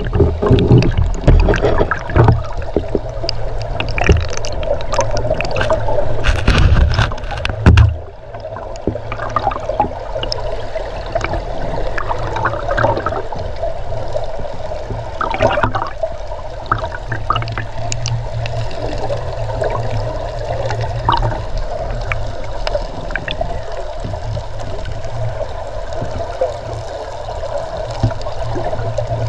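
Fast river current heard underwater through a camera's housing: a muffled, steady gurgling rush with a low rumble. There are louder knocks and bumps for the first eight seconds or so, then a steadier flow.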